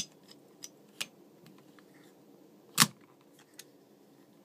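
Metal 1911 pistol frame and slide clicking against each other as the frame is slid onto the slide's rails. A few light clicks, with one sharper clack a little under three seconds in.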